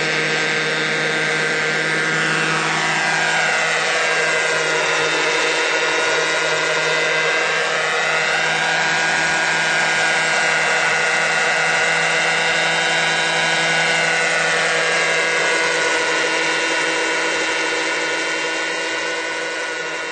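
Giant-scale radio-controlled model helicopter, a replica of the five-bladed Agusta-Sikorsky HH-3F, running steadily, its pitch gliding down and then back up between a few seconds in and about ten seconds in, fading out near the end.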